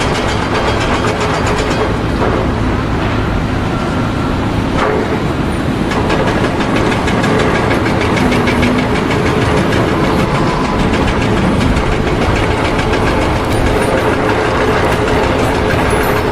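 An engine running steadily and loudly throughout, with a fast, even pulse and no letting up.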